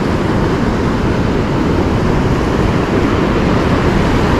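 Ocean surf breaking and washing up a sandy beach, a steady rushing noise, with wind rumbling on the microphone.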